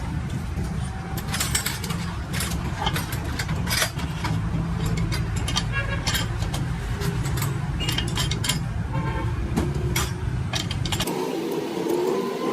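Metal tools and parts clinking and tapping repeatedly over a steady low rumble, which cuts off abruptly near the end.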